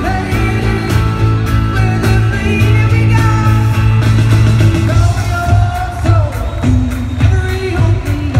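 Live rock-pop song in a large arena: a woman sings lead over a full band, with drums keeping a steady beat. Heard from among the audience, with the hall's echo.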